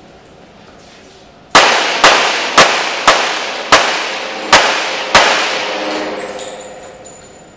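Handgun fired seven times in quick succession, about half a second to three-quarters of a second apart, each shot echoing in an indoor range; the reverberation dies away over about two seconds after the last shot.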